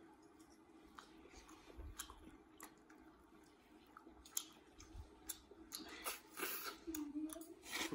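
Close mouth sounds of eating mutton curry by hand: chewing, and biting and sucking meat off the bone, with small wet clicks. There are a couple of louder sucking sounds near the end, over a faint steady hum.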